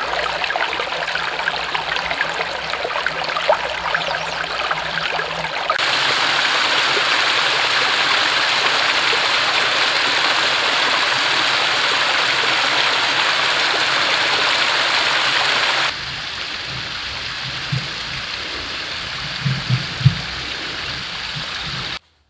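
Water running over rocks: a shallow stream trickling, then a small waterfall cascading down a rock face, louder and steadier from about six seconds in. Near the end it drops to a quieter wash with a few low thumps, then cuts off abruptly.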